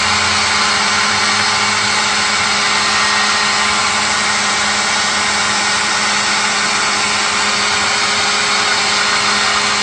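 Ryobi P2102 cordless 18-volt leaf blower, converted into a bee vacuum with a hose and 5-gallon pail, running steadily as its nozzle draws bees off a concrete block. It makes an even rush of air over a steady low motor hum.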